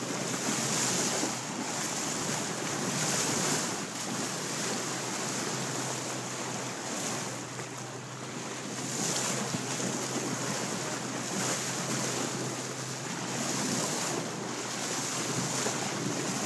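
Water rushing and splashing past the bow of a moving boat, swelling every couple of seconds, with wind buffeting the microphone and a steady low hum underneath.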